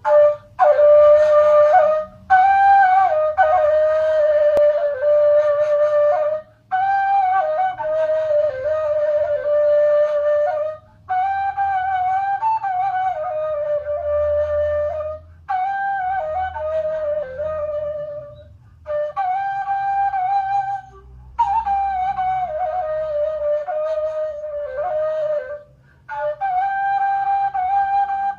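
Solo ney, the end-blown bamboo flute, playing a melody in long held notes that bend and slide between pitches. Short breath pauses break the phrases every few seconds.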